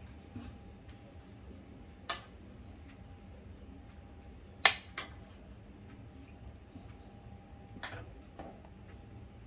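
A metal ladle clinking against a steel pan and a plate as curry is served: about five sharp clinks, the loudest a quick pair just past the middle, over a low steady hum.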